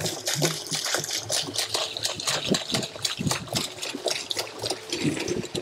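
Hydrogen peroxide pouring from a plastic jerrycan into a plastic drum: an uneven, gushing stream of liquid splashing into the drum.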